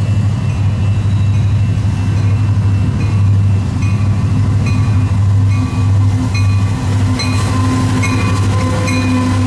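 Union Pacific diesel-electric locomotives approaching at the head of a rail train, their engines running with a steady low hum that gains a second, higher tone about six seconds in. A bell rings steadily over it, about once every two-thirds of a second.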